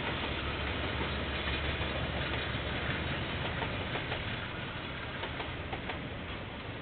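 KiwiRail train passing, heard through a security camera's microphone: a steady rumble of wheels rolling on the rails with light scattered clicks, easing off a little in the second half.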